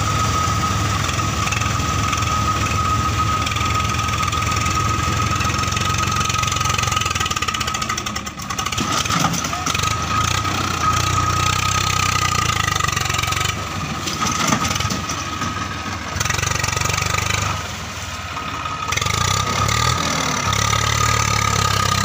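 Swaraj 855 FE tractor's three-cylinder diesel engine running under load while it drives a rotavator through a flooded paddy field, with a steady high whine over the engine note. The sound dips briefly a few times in the second half.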